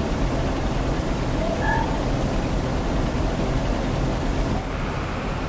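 Combine harvester running steadily under load while harvesting corn, a constant engine and threshing drone heard from inside the cab. Near the end the sound drops a little and a thin high hiss comes in.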